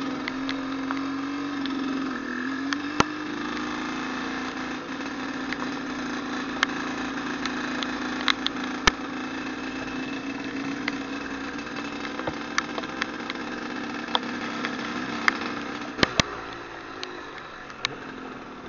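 Trail motorcycle engine running at low, steady revs, with scattered sharp clicks and knocks over it. It gets quieter over the last couple of seconds.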